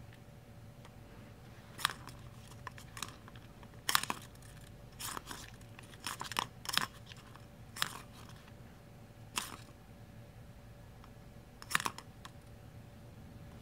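Ball clattering inside a plastic circular track toy as a cat bats at it: about a dozen irregular sharp clicks and knocks, the loudest about four and about twelve seconds in, over a faint steady hum.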